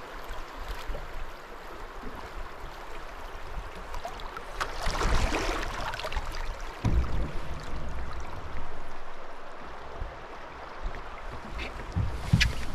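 River water rushing past a canoe's hull as it is paddled down a shallow river, with a louder swell of rushing water about five seconds in and a few low thumps near the end.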